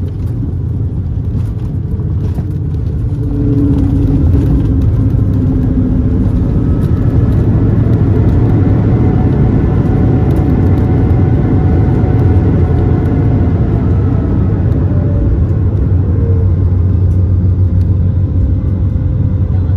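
Cabin noise of an Airbus A220-300 during the landing: the steady rumble of its Pratt & Whitney PW1500G geared turbofans and the airflow grows louder about three and a half seconds in and stays loud. Faint engine tones glide up and down over the top.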